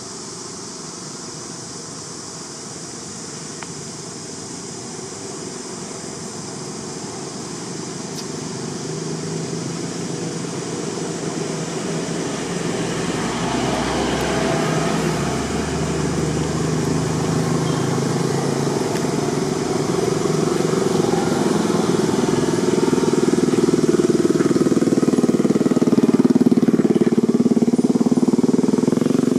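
A motor vehicle's engine running, with a few faint steady tones in the middle, growing steadily louder to near the end.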